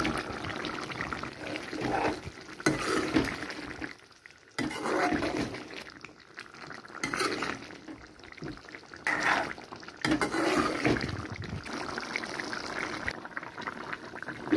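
Fish and potato curry being stirred with a spoon in a metal pot: wet sloshing and scraping in uneven bursts, with a short break about four seconds in.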